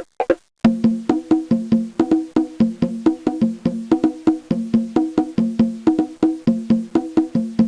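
A fast, even run of pitched wooden percussion strikes alternating between two low notes, starting about half a second in after a few separate knocks.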